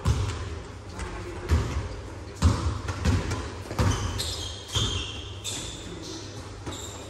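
Basketballs bouncing on a hard gym floor, with repeated irregular thuds that echo in the large hall. A few short high squeaks, typical of sneakers on the court, come a little past halfway.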